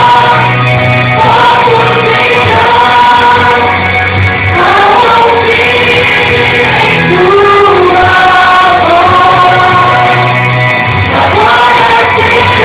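Christian gospel song: several voices singing together in Portuguese over instrumental backing with a sustained bass.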